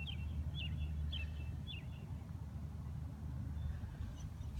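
A small bird chirping four times about half a second apart, each a short note dropping in pitch, over a steady low rumble.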